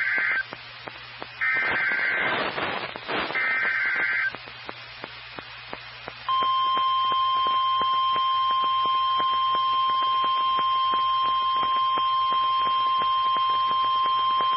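NOAA Weather Radio Emergency Alert System alert for a tornado warning: three short bursts of the SAME header's screeching data tones about a second apart, then, about two seconds later, the steady single-pitch warning alarm tone sounding continuously. Light radio-reception crackle runs underneath.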